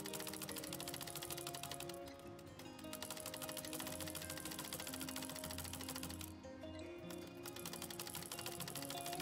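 Treadle-powered straight-stitch sewing machine doing free-motion embroidery, its needle clattering rapidly and stopping briefly twice, over background music.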